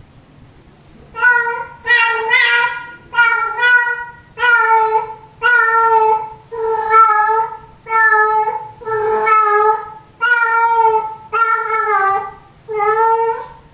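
Female domestic cat in heat calling for a tom: a long run of drawn-out yowls, about one a second, beginning about a second in.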